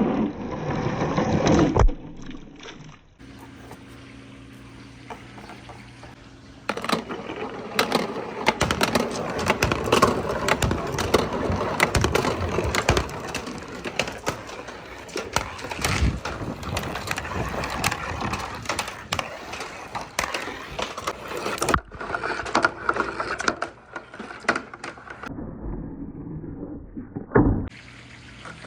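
Marbles and hard acrylic balls rolling and clattering along wooden and plastic marble-run tracks, with many small knocks, in several edited stretches. A quieter stretch with a steady low hum comes a few seconds in.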